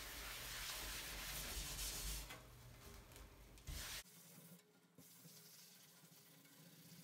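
Wet sponge loaded with baking soda scrubbing a glass shower door: a steady rubbing, louder for the first couple of seconds, then fainter.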